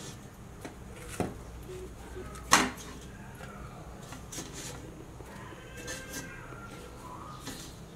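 Husk-on corn cobs being laid by hand into a deep steel cooking pot, with quiet rustling and a few knocks against the pot, the sharpest about two and a half seconds in.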